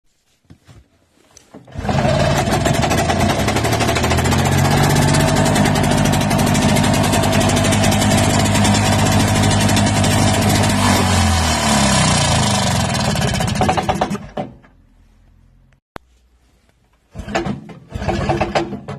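Generator set's 2СД-М small two-stroke engine starts about two seconds in and runs with a fast, steady knocking. The knock is the sign of a torn coupling. Around eleven seconds the engine slows and it stops a few seconds later; two short bursts of sound follow near the end.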